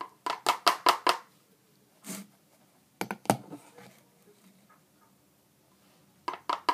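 A metal spoon clinking against a bowl in quick runs of light taps: about five in the first second, a few more a little after three seconds, and another run near the end, with a short rustle at about two seconds.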